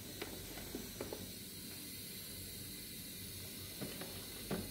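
A steady faint hiss, with a few light clicks and taps as plastic parts of the CPAP circuit are handled.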